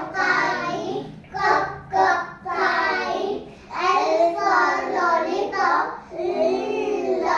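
A class of young kindergarten children chanting phonics sounds together in a sing-song rhythm, in short phrases about a second long.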